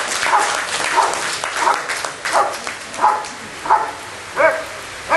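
Rottweiler giving short, high-pitched barks in a steady series, about one every two-thirds of a second.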